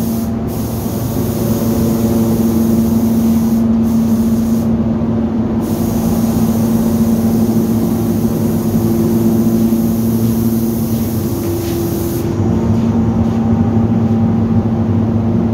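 Steady hum of running spray-painting equipment, with the hiss of spray-gun air cutting in and out several times and stopping about twelve seconds in.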